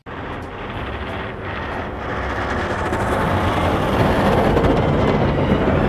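Large wheel loader clearing a snowy road with a front plow blade: its diesel engine is running under load while the blade scrapes and throws snow. The sound grows steadily louder over the first few seconds as the machine comes closer.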